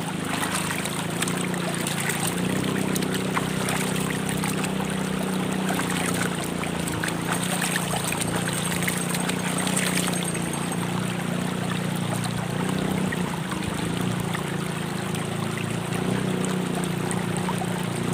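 River water running over stones in a shallow rocky stretch, a steady rush, with splashing as water is scooped by hand and thrown onto a face around the middle.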